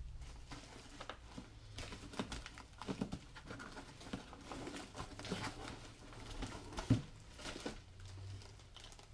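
Quiet rustling and crinkling as a plastic-wrapped mini pool table is handled in its cardboard box, with scattered light taps and one sharper knock about seven seconds in.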